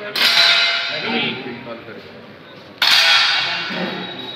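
Two sharp air-gun shots, about two and a half seconds apart, each fading over about a second with a faint metallic ring.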